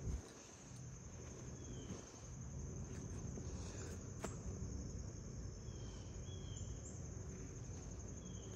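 Crickets chirring as a steady high trill in woodland, over a low rumble, with a few faint short chirps and one click about four seconds in.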